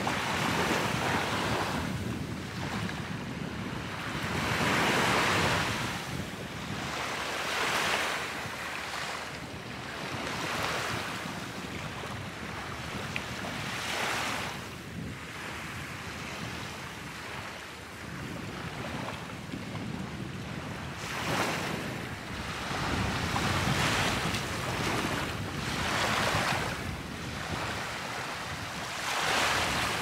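Small waves washing onto a sandy beach, a hiss that swells and fades every two to three seconds, over a low rumble of wind on the microphone.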